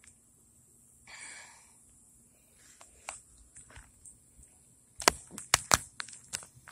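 A short breathy exhale about a second in, then a quick run of sharp clicks and knocks near the end, the loudest sounds here.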